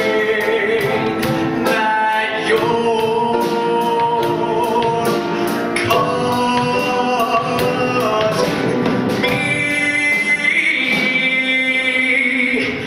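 A man singing long, held notes over instrumental accompaniment.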